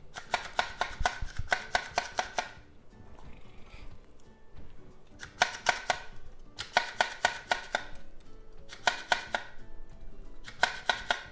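Rapid bursts of sharp knocks, about four or five a second, as a cup is tapped against a glass mixing bowl to shake flour into the dough, with a pause of a few seconds between runs. Faint background music underneath.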